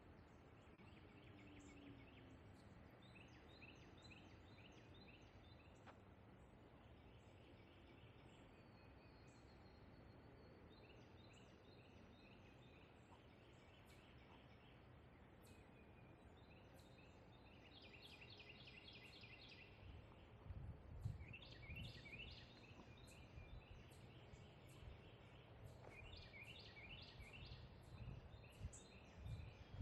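Faint outdoor birdsong: repeated rapid trilled phrases, one after another. In the second half come louder low thumps.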